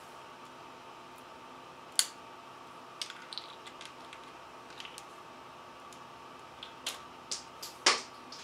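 Small hard plastic clicks and taps as a 3D-printed mini catapult is handled and loaded. Its parts knock against each other and the floor, with one sharp click about two seconds in. The loudest snap comes near the end, as the catapult arm is let go and springs back up.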